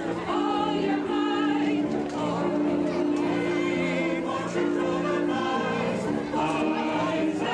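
A small group of women singing a song together, amateur choir style, with long held notes.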